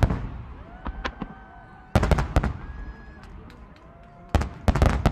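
Fireworks bursting: a quick cluster of loud sharp bangs about two seconds in and another near the end, with a few smaller cracks in between.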